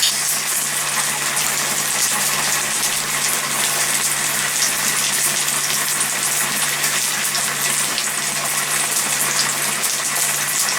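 Food frying in a pan: a steady sizzle with fine crackling, over a low steady hum.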